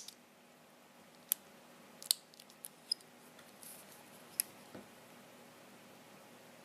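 A few small, sharp clicks and taps from a wristwatch being handled, its stainless steel clasp and case knocking lightly, spaced irregularly over a few seconds.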